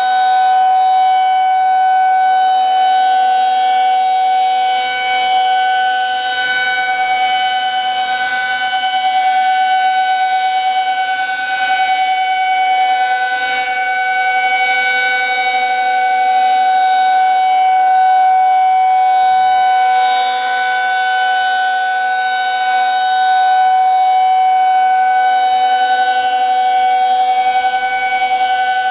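Federal Signal 2001-SRNB rotating electromechanical tornado siren sounding a steady tone at full pitch, loud and swelling and fading slowly as the rotating head sweeps past. A fainter tone glides up to the same pitch about two seconds in.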